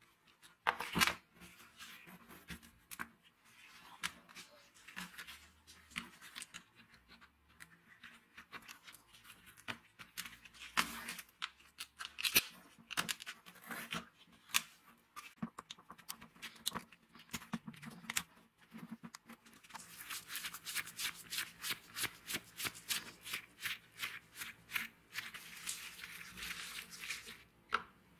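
Gloved hands handling the plastic housing halves and switch assembly of an old angle grinder during disassembly: scattered clicks, knocks and scrapes of hard plastic and metal parts, with a fast run of small clicks and rattles near the end.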